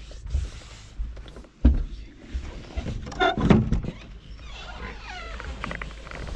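A sharp thud, then a wooden door creaking as it is pushed open about three seconds in.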